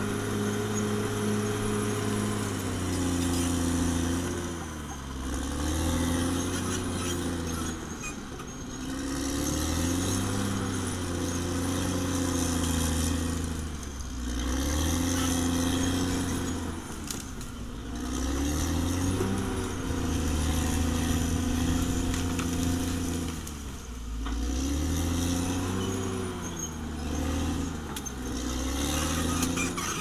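Caterpillar D6R XL bulldozer's diesel engine working under load, its pitch dipping and recovering every few seconds as the dozer pushes dirt and brush with its blade.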